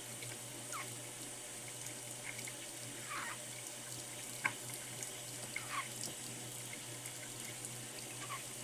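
Tap running a thin stream of water into a sink basin, a steady hiss, with a light click about halfway through.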